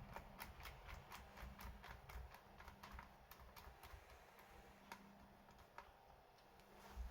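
Faint typing on a laptop keyboard: a quick run of key clicks for the first three seconds or so, then only a few scattered keystrokes.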